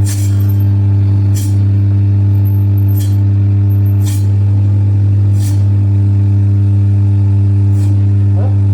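Electric chicken cutting machine running with a loud, steady motor hum, with sharp clicks every second or so.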